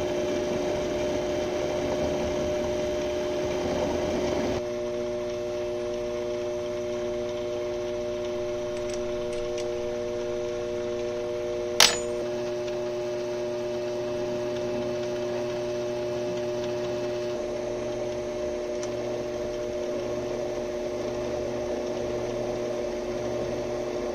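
Small benchtop machine tool running with a steady motor hum made of a few fixed tones. The background noise drops abruptly a few seconds in, and a single sharp click comes about halfway through.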